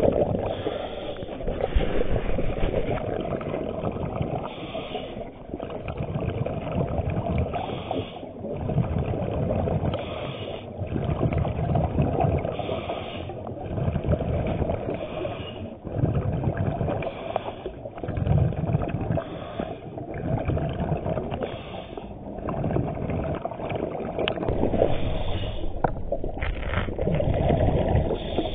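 Underwater sound of a scuba diver breathing through a regulator. A hiss on each inhale alternates with a rumble of exhaled bubbles, the cycle repeating every two to three seconds.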